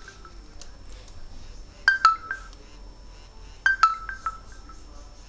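Smartphone speaker playing a short two-note electronic chime, a higher note then a lower one trailing off in quick fading repeats, twice about two seconds apart.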